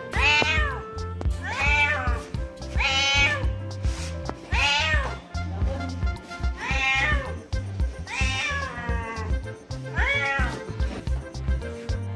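A domestic cat meowing seven times, about one call every one and a half seconds, each call rising and then falling in pitch, over background music with a steady beat.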